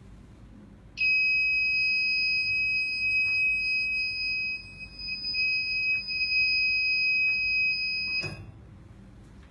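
An electronic buzzer sounding one steady, high-pitched tone that starts about a second in and cuts off suddenly some seven seconds later.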